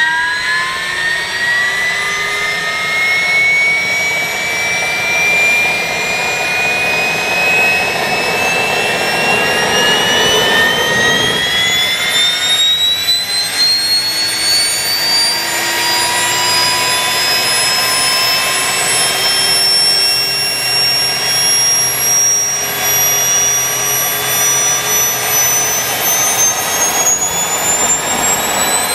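Small gas turbine of a large radio-controlled EC135 model helicopter spooling up: a loud, high whine that climbs in pitch in stages, pausing about a third of the way in and climbing again, with a steady rushing hiss underneath.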